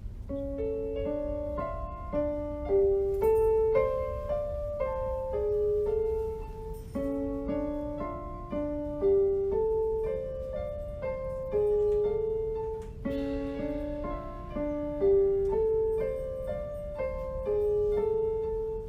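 Piano-like keyboard music: an original student composition moving in a flowing pattern of single notes and broken chords, each note struck and fading away.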